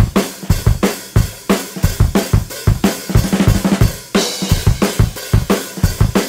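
Background music with a steady drum-kit beat: kick, snare and cymbals.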